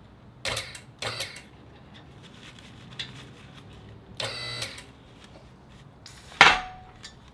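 Short sputtering bursts as air and hydraulic fluid spit from a loosened bleed screw on a QuickJack lift frame while its hydraulic system is bled. There are two quick spurts near the start and a longer, buzzier one past the middle. A sharp knock near the end rings briefly.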